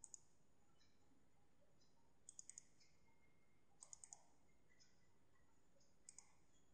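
Faint computer mouse clicks, in four quick runs of two to four clicks each, a couple of seconds apart.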